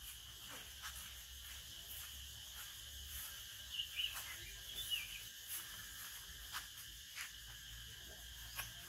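Faint steady insect chirring, with scattered light footsteps and knocks and a few short high chirps about four to five seconds in.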